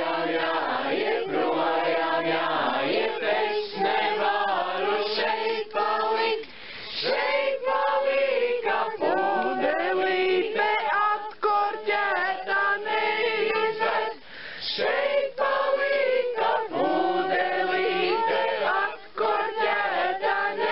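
A group of men and women singing a song together in chorus, with a few short pauses between phrases.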